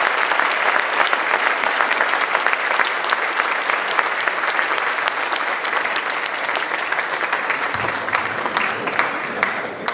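Audience applauding: dense, sustained clapping that begins to thin out near the end.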